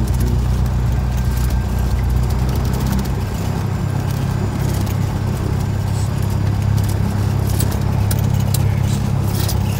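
A Cessna 172SP's Lycoming IO-360 four-cylinder engine and propeller running at low power, heard from inside the cabin; the engine note shifts about three seconds in.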